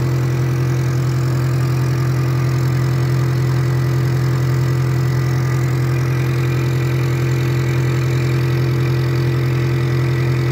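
Metal lathe running, turning a steel bar while the tool takes a cut. It makes a loud, steady hum with a faint high whine from the drive.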